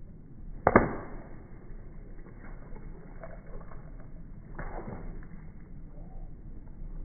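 Slowed-down footsteps stomping on a wet concrete sidewalk, deep and drawn out. One loud stomp comes just under a second in and a softer thud about four and a half seconds in.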